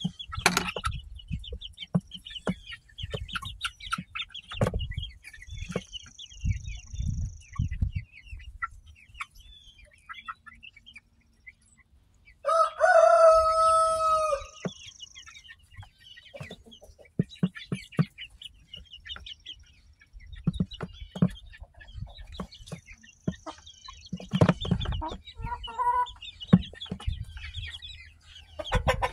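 Lavender Orpington pullets pecking at feed in a dish, a run of quick sharp taps, with soft clucking. About twelve seconds in a rooster crows once, the loudest sound, lasting about two seconds.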